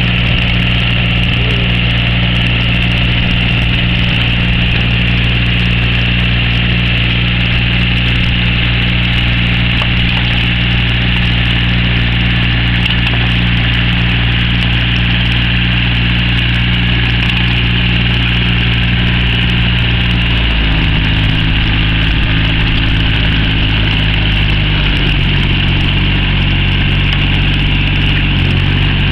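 Kubota ZL2002DT diesel tractor running steadily under load as it pulls a rotary tiller through a flooded rice paddy. Its engine note shifts about two-thirds of the way through and again a few seconds later.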